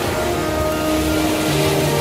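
Instrumental music of long held notes that shift to new pitches every second or so, over a steady wash of noise.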